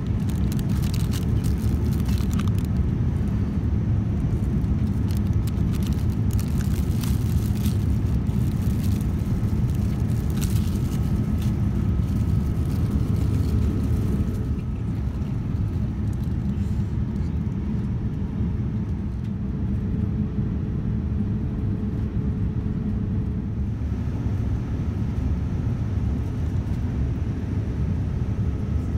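Steady low roar of a Boeing 787-9's cabin in flight: engine and airflow noise. A plastic wrapper crinkles in the first few seconds and briefly again around ten seconds in.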